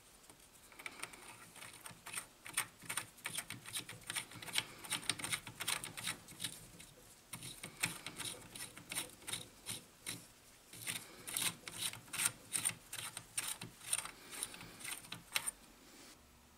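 Light metal clicks and scrapes from hands working on a threaded steel tube held in a lathe's three-jaw chuck, an uneven run of about two to four clicks a second that stops shortly before the end.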